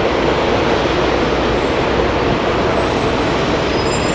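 Steady, loud noise of airliner jet engines running around the airport apron, a broad even rumble with no single event standing out.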